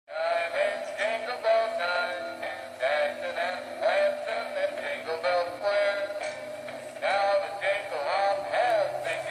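A Christmas-style song sung in a high, synthetic-sounding voice over a steady accompaniment.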